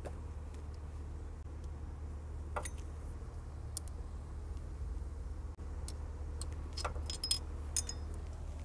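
A few faint metallic clicks and taps from a socket and a loosened 14 mm alternator mounting bolt being turned out by hand, over a steady low hum.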